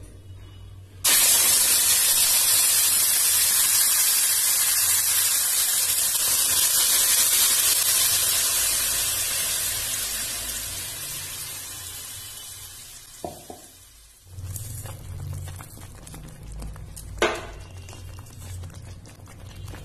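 Bottle gourd leaf paste hitting hot oil in a wok, sizzling loudly from about a second in and slowly dying down as it cooks. Afterwards a quieter stretch with a low hum and one sharp tap near the end.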